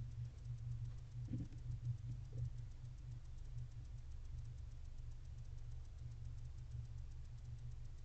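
Steady low electrical hum with faint, rapid, evenly spaced ticking, typical of a nest-box camera's microphone. A couple of soft rustles sound about a second and a half in and again just after two seconds, as a barn owl shifts on the litter of the box floor.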